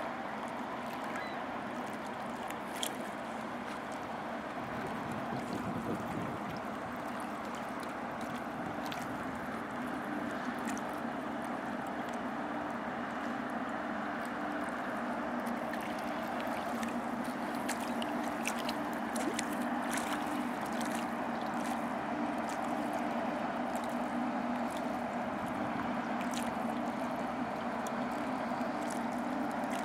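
Passing lake freighter's engines running with a steady low hum, growing slightly louder as the stern draws near, with water gurgling along the hull and shore.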